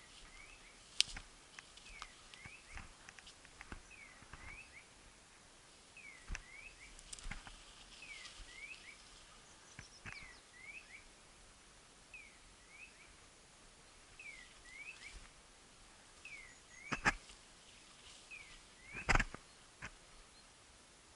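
Electronic beeper collar on a woodcock-hunting dog, sounding a short falling-then-rising chirp every second or two. Twigs and brush crackle, with two sharper cracks near the end.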